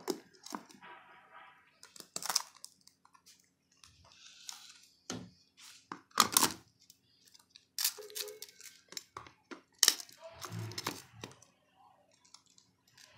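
Irregular clicks, knocks and scrapes of hard plastic as the bowl and lid of an electric food chopper are handled and fitted together, with no motor running.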